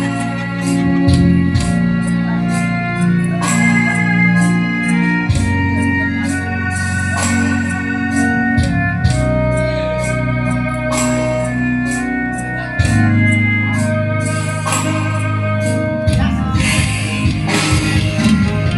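Instrumental break of a slow Malay song: an electronic organ-type keyboard plays a melody over held chords and a bass line that changes every few seconds, with a steady light beat of cymbal ticks.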